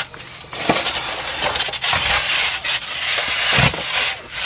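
Footsteps on roof underlayment strewn with clay-tile grit and shards, a steady gritty crunching and scraping with a few heavier footfalls.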